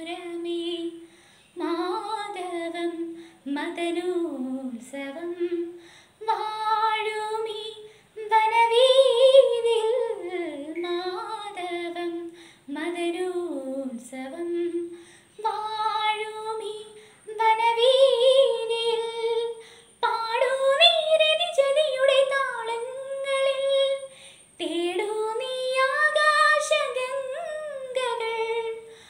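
A teenage girl singing solo and unaccompanied, in flowing phrases a couple of seconds long with brief breath pauses between them.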